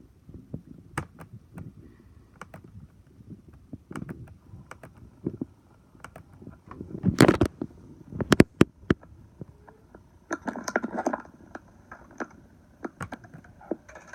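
Belching: a loud belch about halfway through, a short second one a moment later, and a rough, rattling belch about three quarters in, among scattered clicks and knocks.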